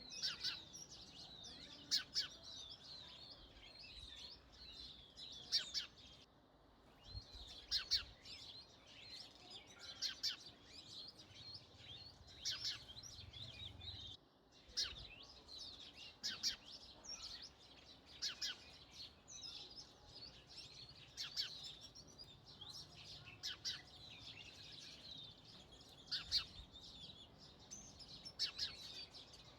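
Sparrows chirping continuously, many short chirps overlapping as from a group of birds, with two brief breaks about six and fourteen seconds in.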